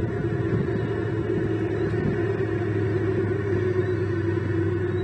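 Steady low hum with a rumble beneath it, unchanging throughout.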